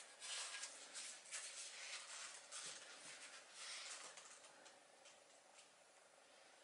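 Faint scratching and rustling of a plastic glue bottle's nozzle being run along the edge of a wooden hull slice by gloved hands. It stops about four and a half seconds in.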